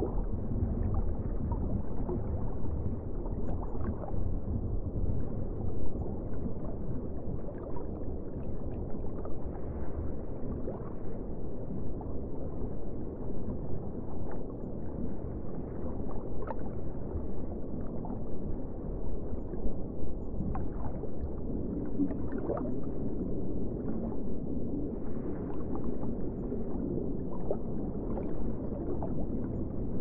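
Underwater ambience: a steady, muffled rushing of water, with short faint bubbling sounds scattered through.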